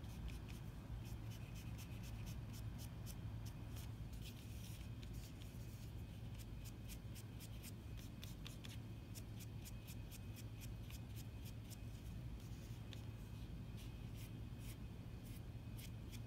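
Foam sponge brush dabbing and rubbing acrylic paint onto a foam collagraph stamp: soft, rapid little taps and scrapes, over a low steady hum.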